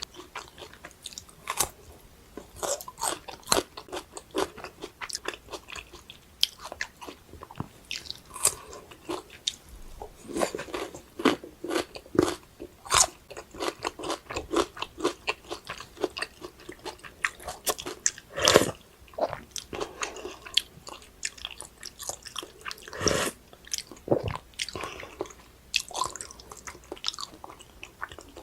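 Close-miked eating sounds: steady chewing with many short crisp crunches and mouth clicks, and two louder, longer noises past the middle.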